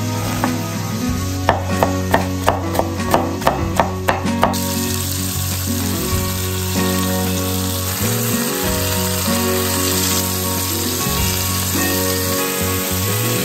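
A chef's knife chopping onion on a wooden cutting board, about ten sharp strokes. After about four and a half seconds it gives way to boneless chicken thighs sizzling steadily in hot oil in a pan.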